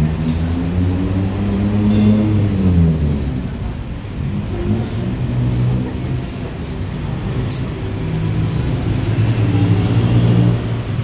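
Street traffic passing close by. A motor vehicle's engine revs up and then falls away about two to three seconds in, followed by a steady low engine drone.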